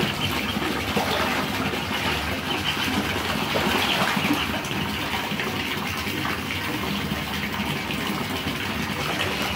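Bathtub tap running steadily into a tub of shallow water, a continuous gushing splash, with ducklings peeping faintly now and then over it.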